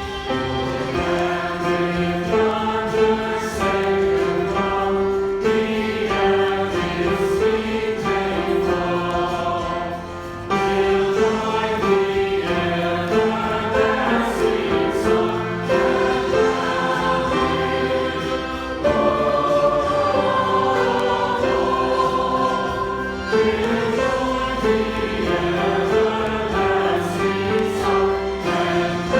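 A choir and congregation singing a hymn in phrases, with instrumental accompaniment.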